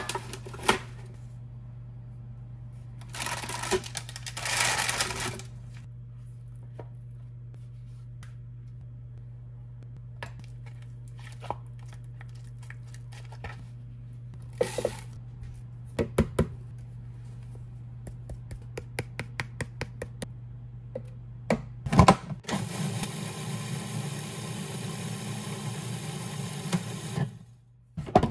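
Kitchen handling: scattered clicks, knocks and a couple of short rustling scrapes, then near the end an electric food processor's motor runs steadily for about five seconds and stops.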